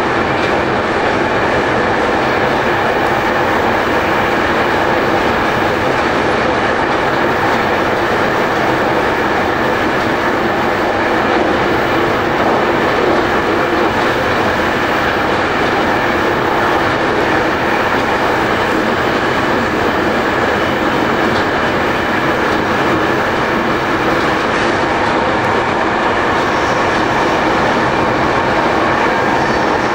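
Electric commuter train running at speed. A steady, even rumble of wheels on rail, heard from the rear cab.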